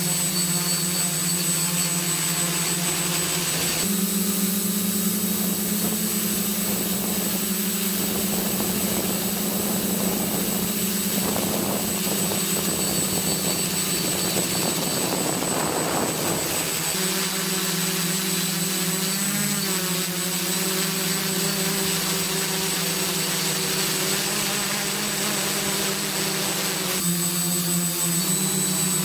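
Quadcopter's electric motors and propellers humming steadily, heard from the drone's own camera. The pitch steps up about four seconds in and drops back about seventeen seconds in, with a rushing noise over the hum in between.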